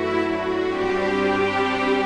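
Background music with long held notes that change slowly.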